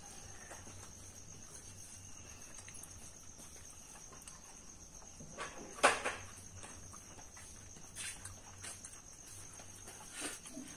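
Crickets trilling steadily in the background, with a single sharp knock about six seconds in and a few fainter knocks later.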